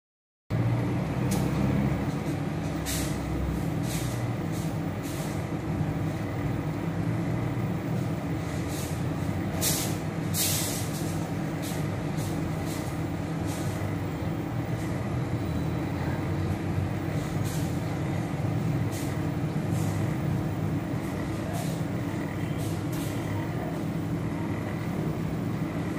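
Halogen convection oven running while roasting, its fan giving a steady low hum, with scattered faint clicks and a couple of louder ones about ten seconds in.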